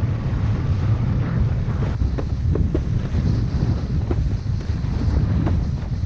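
Wind buffeting the microphone of a kitesurfer's body-mounted camera as the board skims across choppy sea, with a few short slaps of water in the middle.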